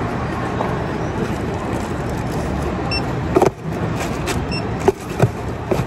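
Steady drone of warehouse machinery at a packing station, with two short electronic beeps about three and four and a half seconds in. Several sharp knocks and rustles near the end as an item in a plastic bag is handled and put into a cardboard box.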